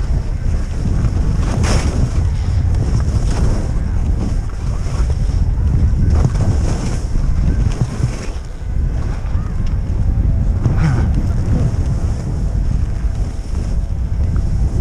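Wind buffeting a camera microphone during a fast ski descent, a loud, continuous low rumble. A few brief swishes of skis turning through powder snow rise above it.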